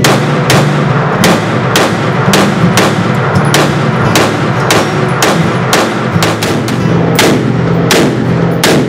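Gunfire on an indoor range: about twenty shots from a compact semi-automatic pistol and an AR-style pistol, coming irregularly at about two to three a second.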